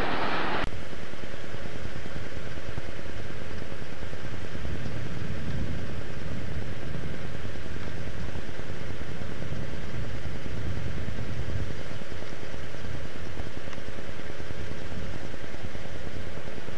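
A passing train's noise cuts off abruptly under a second in, giving way to a steady low rumble of distant diesel freight locomotives with faint hum tones, swelling twice.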